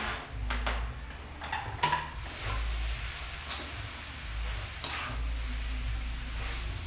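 Spatula knocking and scraping against a wok as fried noodles are stir-fried, with several sharp knocks in the first two seconds and a few more spread out after.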